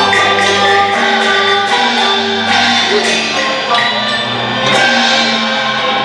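Cantonese opera (粵曲) accompaniment ensemble playing a passage of Chinese traditional music: a run of struck and plucked notes over held lower tones.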